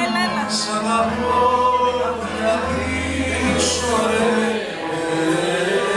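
Music with male voices singing a held, sustained melody.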